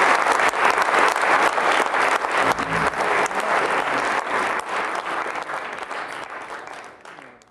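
Concert audience applauding, a dense steady clapping that fades out over the last couple of seconds.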